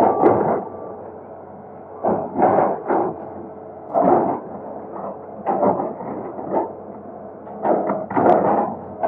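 Excavator breaking up a concrete bridge: repeated bangs and scrapes of the bucket on concrete, coming every second or two, over the machine's steady running.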